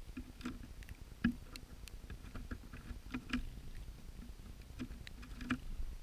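Irregular light taps and clicks from a black-capped chickadee landing and pecking at seed on a feeder close to the microphone, with one sharper knock about a second in.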